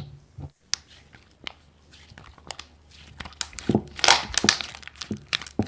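Slime being squeezed and pressed by hand, giving a run of crackling, popping clicks that come thickest about four seconds in.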